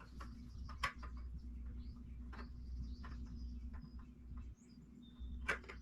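A few sharp metallic clicks and light scraping as a spin-on oil filter is worked against the motorcycle's filter mount threads without catching, the loudest clicks about a second in and near the end, over a low steady hum.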